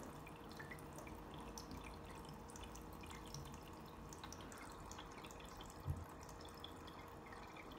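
Small tabletop water fountain trickling and dripping faintly, with scattered light drips. A soft low knock sounds once about six seconds in.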